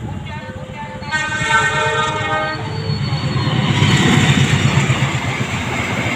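The Argo Bromo Anggrek express passenger train's locomotive horn sounds a chord for about two seconds, then the train runs through the level crossing with a loud rush and a rumble of wheels on the rails, loudest about four seconds in.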